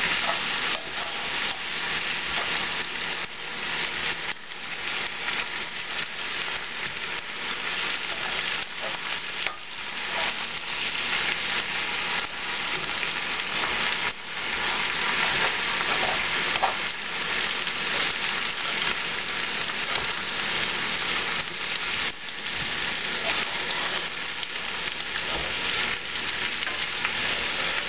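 Cabbage and diced Spam frying in bacon grease in a cast-iron skillet: a steady sizzle, with a spatula stirring and turning the food now and then.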